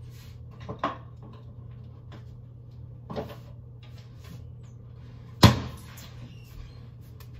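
A door shut with one sharp bang about five and a half seconds in, after lighter knocks at about one and three seconds, over a low steady hum.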